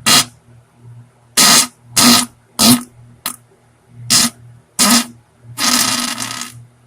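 Diarrhea fart sounds: a string of short, loud, noisy blasts, about six, roughly every half-second to second, then a longer blast near the end lasting about a second.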